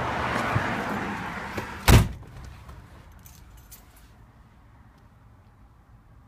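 Rumbling cabin noise inside a 1964 Pontiac Parisienne limousine that fades over the first two seconds, then one loud thump about two seconds in, followed by a quiet cabin with a few faint clicks.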